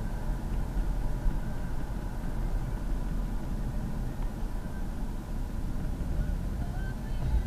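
Steady low rumble of a vehicle's engine and road noise, with no distinct events.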